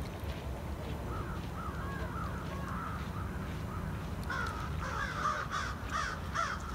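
A bird giving harsh calls in quick succession, in two runs, the second louder, over a steady low rumble.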